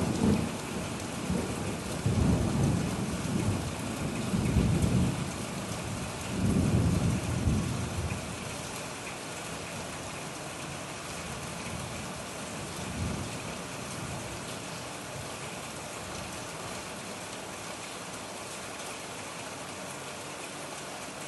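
Steady rain falling on corrugated roof sheeting, an even hiss. Low rumbles swell and fade several times during the first eight seconds, with one weaker rumble later.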